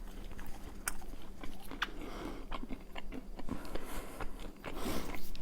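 Close-miked biting and chewing of crunchy food, vegan honey walnut shrimp: a run of sharp, irregular crunches.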